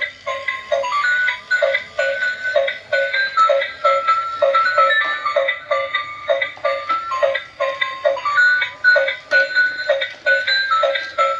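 Background music: a bright, plinking melody over a short note repeated about three times a second.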